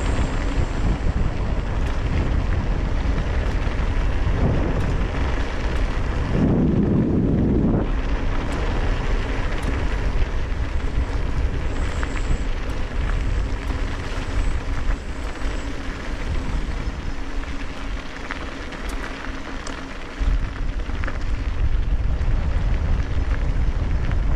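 Wind rushing over the microphone of a mountain bike rider descending at speed, with scattered clicks and rattles from the rough road.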